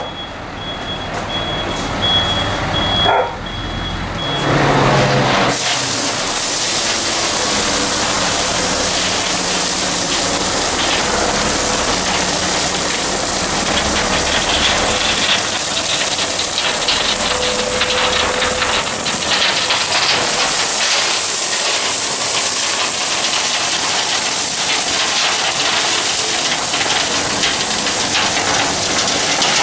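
Tipper truck's reversing beeper sounding in short high pulses, then from about five seconds in a load of gravel sliding and pouring out of the raised tipper body in a steady loud rushing hiss, with the truck's engine running underneath.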